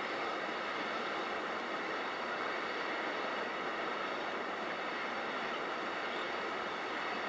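Container freight wagons rolling past on the track: a steady, even rolling noise with no breaks or changes.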